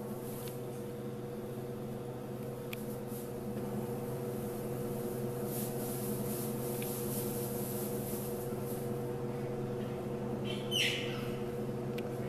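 A steady mechanical hum with several fixed low tones, and, about ten and a half seconds in, one brief high-pitched squeaky call from a jaguar cub.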